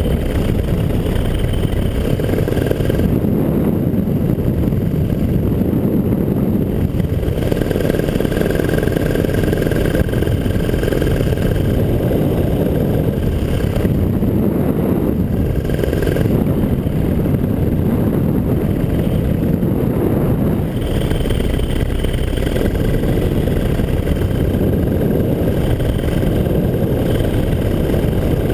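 Paramotor engine running steadily in flight, a loud, even drone that holds constant throughout.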